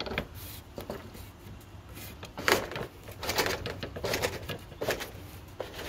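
Carefree Freedom roof-mount awning being pulled open with a hockey stick: a series of irregular scrapes, knocks and rattles from the awning mechanism and the stick, the strongest about two and a half seconds in.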